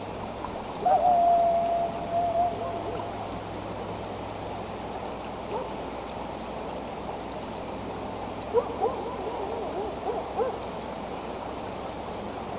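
An unidentified animal calling over a steady background hiss. It gives one long held note of about two seconds, then a few short notes. Near the end comes a quick run of short rising and falling notes.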